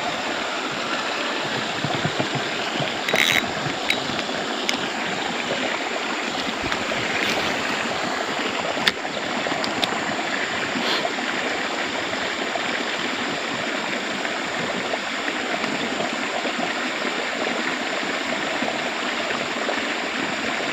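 Steady rushing of flowing stream water, with a few short, faint clicks in the first half.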